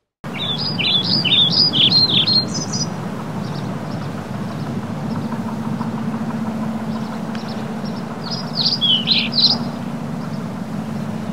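A songbird singing two quick bursts of high chirping notes, the first near the start and the second about three quarters of the way through, over a steady low hum.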